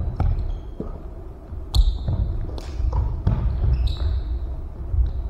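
A basketball bouncing and thudding on a hardwood gym floor during play, with sneakers squeaking sharply twice, echoing in a large gym.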